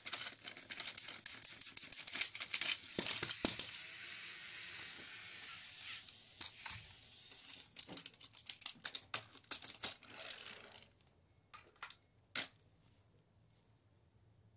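Battery-powered toy train engines (Thomas and Mavis) running against each other on plastic track, their motors whirring and gears and wheels clattering in a dense rattle. The rattle cuts off about eleven seconds in, leaving a few faint clicks and one sharp knock a little later.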